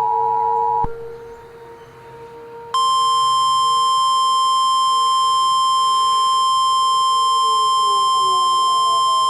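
The Emergency Alert System two-tone attention signal cuts off just under a second in. After a short quieter stretch of faint gliding background tones, the single steady NOAA Weather Radio warning alarm tone starts about three seconds in and holds.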